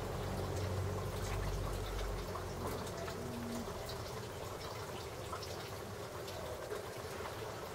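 Steady rushing, trickling noise like running water, with a low hum that fades out about two seconds in.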